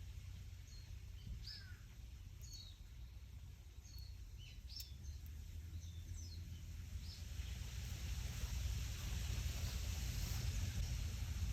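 Wind blowing through trees, with leaves rustling that swells louder in the second half and a steady low rumble of wind. Small birds chirp with short notes in the first half.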